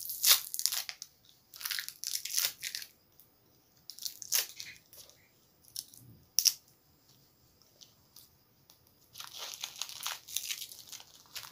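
Foil lollipop wrapper crinkling and tearing in short, irregular bursts close up as it is pulled and bitten off the candy, with some crunching.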